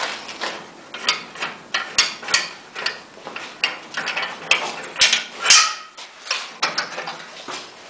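Irregular metallic clicking and clacking from a plastering machine's ratchet and toothed-rack mast mechanism, with a few sharp clicks in the middle.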